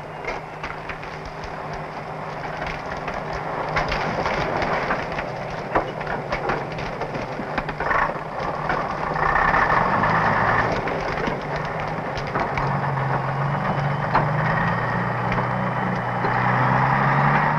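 Scania-Vabis LA82 terrain truck's diesel engine working under load as the truck forces its way through woodland, with many sharp cracks and snaps of branches and saplings breaking under it. The engine note rises and grows louder in the second half.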